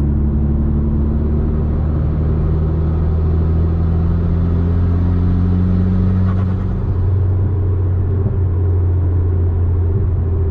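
Mitsubishi Lancer Evolution X turbocharged four-cylinder heard from inside the cabin, pulling in sixth gear at about 80 km/h with a steady low drone over road noise. Under light throttle, building a little boost, the note and a hiss rise gently, then ease off about two-thirds of the way through.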